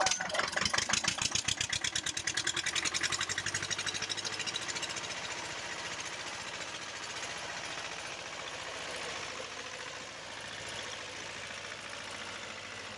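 Small tractor's engine running with a fast, loud knocking beat for the first few seconds, then settling to a steadier, slightly quieter run, while the tractor is bogged to its axles in deep mud.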